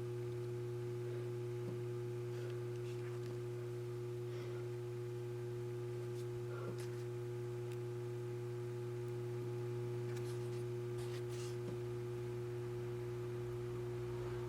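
Synology DS423+ NAS with its hard drives spinning, giving a steady low hum with a steadier, higher tone over it, and a few faint ticks.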